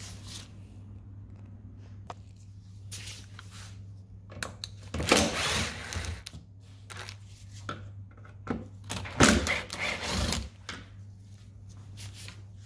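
Cordless drill-driver run in two short bursts, each about a second long, backing out the two screws that hold a tail-light housing.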